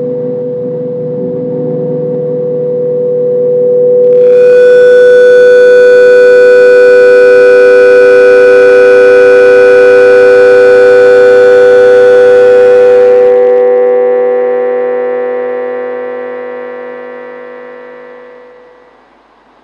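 Drone music: loud, unchanging droning tones stacked in pitch. A brighter, harsher layer swells in about four seconds in and drops out about thirteen seconds in, and the remaining drone then slowly fades out near the end.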